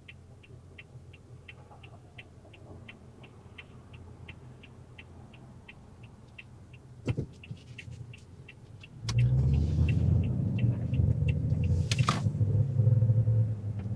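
Car interior: the turn signal ticks steadily, about three clicks a second, over low engine and road rumble. About nine seconds in, the rumble turns much louder as the car pulls away, and the ticking stops a couple of seconds later.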